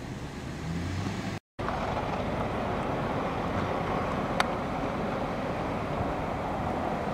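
A car engine runs under load for about a second and a half. After a cut, a snowplow truck drives through the snow with its blade down, giving a steady rushing, scraping noise mixed with wind. A single sharp click comes about four seconds in.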